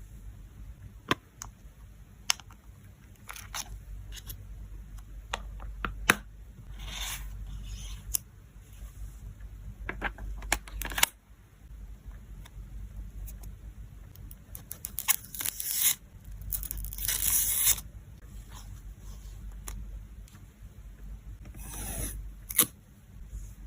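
Photocards and their plastic sleeves and packing materials being handled: irregular small clicks and taps between short crinkling, rustling bursts, with a longer burst a little over two-thirds through.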